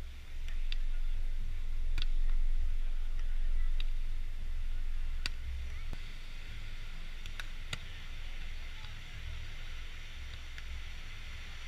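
Beach volleyball being played: several sharp slaps of hands and forearms striking the ball, spaced a second or two apart, the loudest about two seconds in. Under them, a steady low rumble and hiss.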